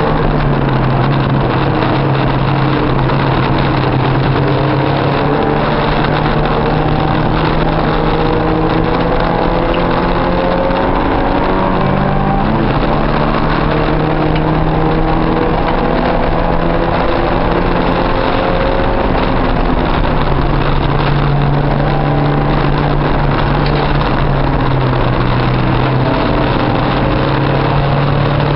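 Porsche 944's 2.5-litre four-cylinder engine running hard inside the race car's cabin, racing on track. The engine note climbs under acceleration and drops back at gear changes several times.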